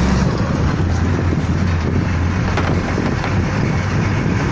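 Engine and road noise of a moving vehicle, heard from inside it as a steady low hum, with wind buffeting the microphone.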